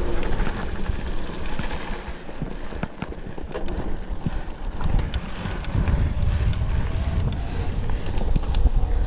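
Wind buffeting the microphone and an electric mountain bike rattling over rough ground at speed with its motor switched off, full of scattered clicks and knocks; the low rumble grows heavier about six seconds in.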